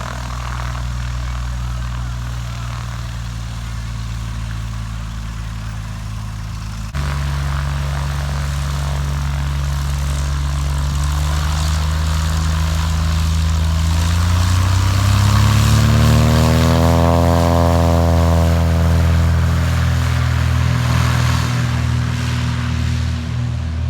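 A light propeller airplane's piston engine runs steadily, gets louder about a third of the way in, then revs up with a rising pitch past the middle and holds at the higher speed.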